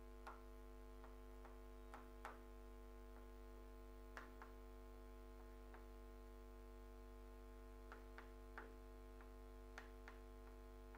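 Very faint chalk taps on a chalkboard as letters are written: scattered small clicks at uneven intervals over a steady low hum.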